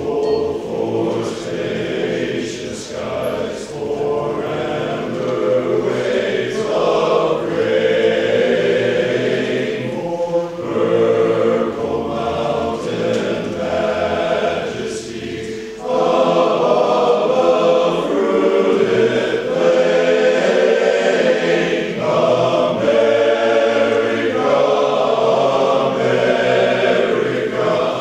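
Men's chorus singing unaccompanied in harmony, growing louder about halfway through.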